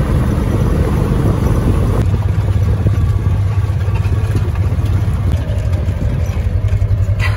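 Engine of an open side-by-side utility vehicle running steadily as it drives along a farm track, a low pulsing drone.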